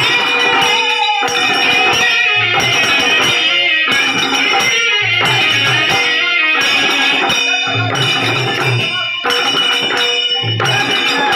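Loud traditional Odia folk-theatre music with a steady rhythm: clusters of drum strokes about every two and a half seconds, jingling metal percussion, and a sustained melody line over them.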